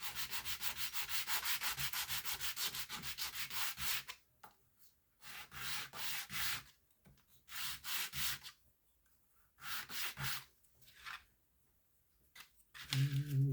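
Hand sanding the edges of a small cut piece to square them up: quick, even back-and-forth strokes, about seven a second, for the first four seconds, then a few short runs of strokes with pauses between.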